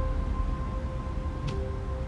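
Soft ambient background music of long held notes, with a new note coming in about a second and a half in.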